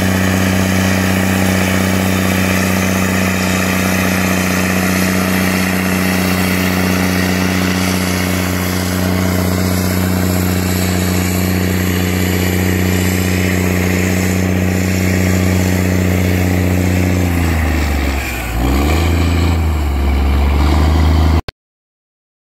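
Big Bud tractor's large diesel engine running steadily under heavy load as it pulls a wide tillage implement through the soil. Near the end the engine note dips and wobbles, then recovers, and the sound cuts off abruptly.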